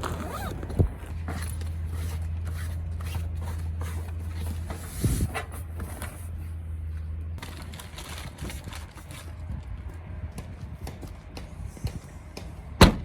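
Low, steady vehicle engine hum with scattered clicks and knocks over it, and one sharp bang near the end.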